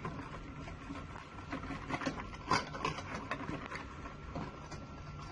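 A spoon stirring a thick, wet spice marinade paste with yogurt in a bowl: irregular clicks and knocks of the spoon against the bowl, over a faint steady hum.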